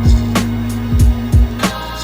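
Background music: a guitar-led tune over a steady drum beat with deep kick drums.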